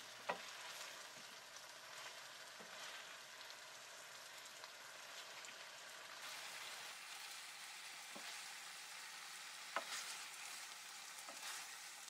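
Food frying in hot oil, a steady sizzle, with a few light clicks or taps scattered through it.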